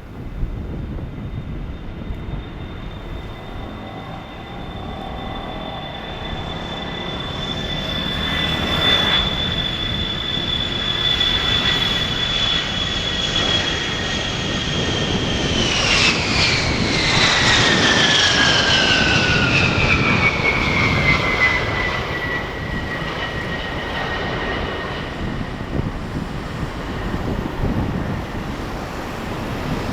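A four-engine military jet of the C-135/707 family passing close by: its engine whine holds a steady pitch, then drops sharply about halfway through as it goes past, and the noise then eases off.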